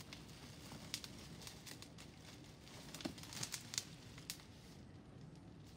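Faint crinkling and rustling of plastic wrap, with scattered small crackles and clicks, as a plastic-wrapped bike is lifted out of its cardboard box.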